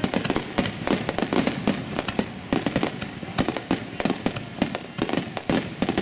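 Aerial firework shells bursting in rapid succession, several sharp bangs a second overlapping with no pause, heard from very close to the launch site.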